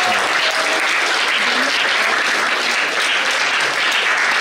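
Audience applauding, a steady, even clapping.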